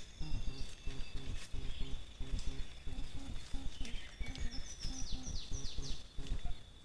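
Outdoor ambience of natural sounds: a low pulsing repeats about three times a second, under a steady thin high whine. A bird gives a quick run of about six falling chirps in the middle.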